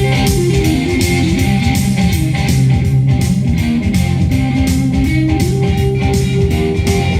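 Instrumental stretch of a guitar-driven song, with bass and a steady drum beat, played back from cassette on a Sony TC-K61 cassette deck.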